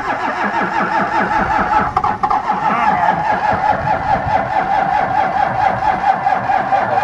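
Cummins 5.9-litre inline-six diesel in a Dodge Ram W250 being cranked on its starter with a steady whine, turning over for several seconds without firing. It is a hard cold start, which the owner blames on thick 15W-40 oil in the cold and the truck not being plugged in.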